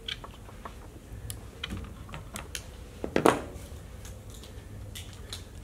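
Light metallic clicks and taps of pliers working the throttle-cable adjuster on a hedge trimmer's carburetor, with one louder clack about three seconds in as the pliers are set down on the wooden workbench.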